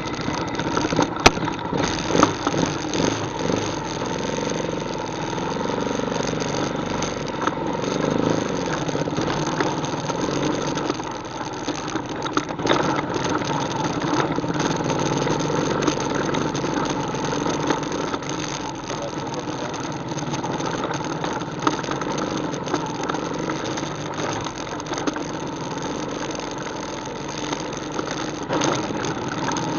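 ATV engine running steadily on a trail ride, with a few sharp knocks about a second or two in.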